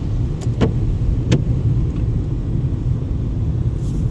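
Car driving: a steady low rumble of engine and road, with a few light clicks in the first second and a half.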